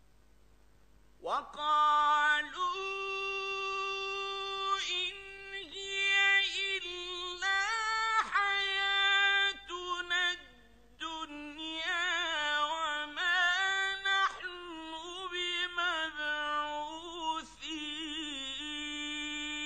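A man chanting the Quran in a high, melodic voice, drawing out long notes with ornamented turns: one long phrase starts about a second in, and a second follows after a short pause near the middle.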